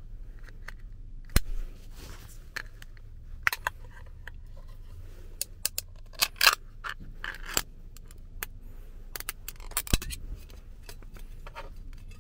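Ring-pull lid of a metal food can being lifted and peeled open by hand: a run of sharp metallic clicks and scrapes. There is a sharp click about a second and a half in, and the loudest tearing scrapes come about six seconds in.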